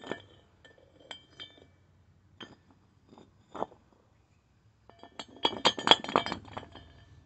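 Steel bar clinking against a steel pulley and its hub, bright ringing metal-on-metal taps as the parts are worked loose: a few single clinks, then a quick flurry of rattling clinks about five seconds in.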